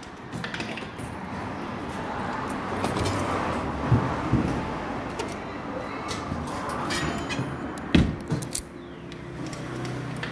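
Noisy arcade-style background din of mixed machine noise and distant chatter, with two sharp knocks, about four and eight seconds in.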